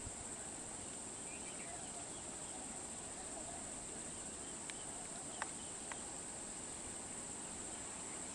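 Insects droning steadily at a high pitch in the roadside forest, with a few faint chirps and three short sharp clicks a little past halfway.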